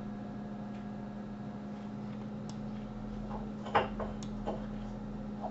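A few light clicks of a computer mouse and keyboard over a steady low electrical hum. One louder short sound comes a little under four seconds in.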